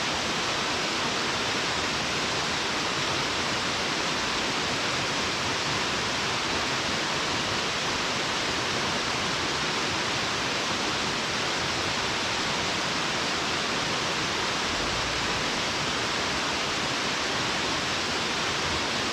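Waterfall: a steady, unbroken rush of falling water, an even hiss that does not change.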